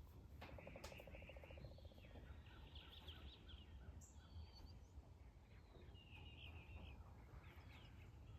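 Faint birdsong: several small birds chirping and trilling, including a buzzy trill in the first two seconds and short chirp series in the middle.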